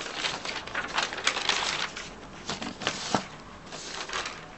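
Paper sheets rustling and crackling as they are handled and slid across a table, with a run of irregular crinkles and soft taps.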